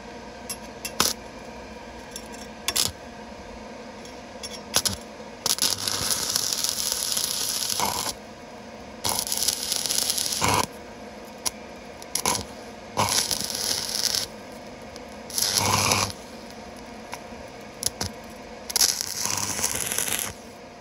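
Stick (arc) welding on thin steel pipe: the flux-coated electrode's arc crackling and sputtering. A few sharp clicks in the first five seconds as the arc is struck, then the arc runs in five short bursts of one to three seconds, broken and restruck between them.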